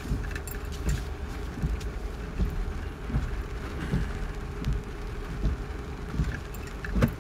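Inside a car driving slowly in heavy rain: a steady low rumble of engine and road noise with rain on the car, and soft thumps recurring a little under once a second.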